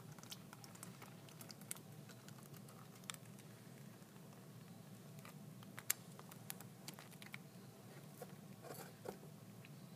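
Faint, scattered small clicks and ticks, the sharpest about six seconds in, as a glass jar of marinara sauce is tipped and poured over cabbage rolls in a baking pan, over a low steady room hum.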